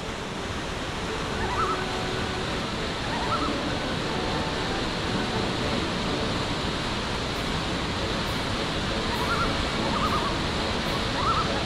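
Steady rush of whitewater rapids on a rocky mountain river, with a few faint short chirps.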